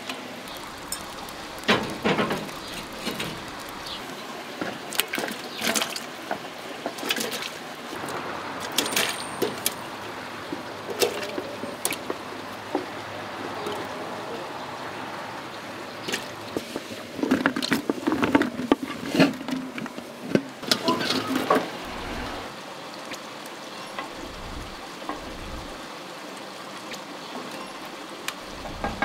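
Chunks of carrot, turnip and courgette dropped by hand into a steaming pot of broth, giving repeated splashes and knocks in several bursts. A wooden spoon stirs the pot near the end.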